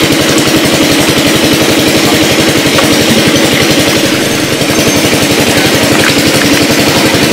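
A small engine running steadily at a constant speed, with a brief slight dip in level about four and a half seconds in.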